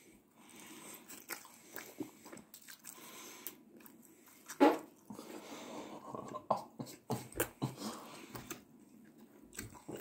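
A person biting and chewing a mouthful of pizza close to the microphone: wet mouth clicks and small crunches of the crust. There is one louder sharp sound about halfway through.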